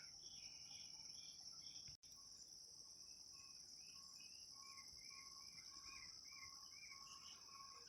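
Faint, steady high-pitched trilling of crickets. From about two seconds in, a run of short chirps repeats about twice a second.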